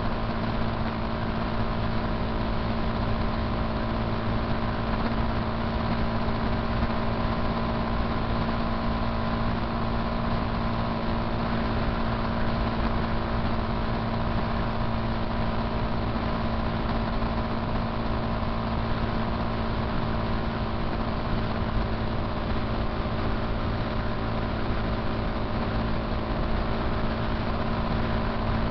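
Motorcycle engine running at a constant cruising speed, an even drone that holds one pitch throughout, under a steady rush of wind and road noise.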